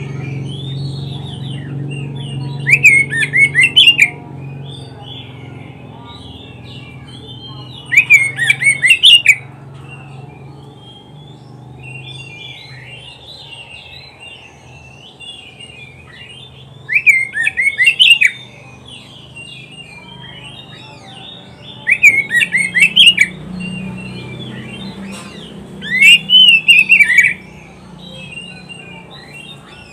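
Oriental magpie-robin (kacer) singing: a soft, continuous warbling chatter, broken five times by loud bursts of rapid, sharp notes that fall in pitch.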